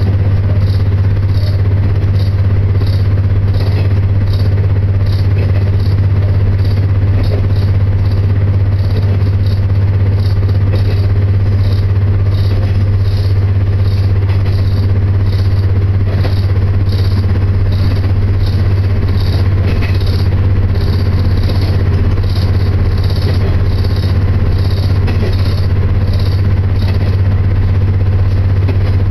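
Diesel railcar running at speed, heard from inside the passenger cabin: a steady low engine drone with the clatter of the train under way.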